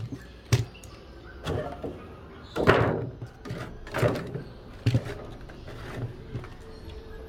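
Packaging being handled as a diecast toy monster truck is freed from its clear plastic and cardboard box on a wooden table: a string of separate knocks and crinkles. The loudest, a longer crackle, comes about two and a half seconds in.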